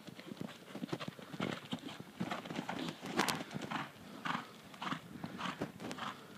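A ridden horse's hoofbeats on a sand arena at a canter, falling in an even rhythm of about three a second. One sharper, louder knock comes a little past three seconds in.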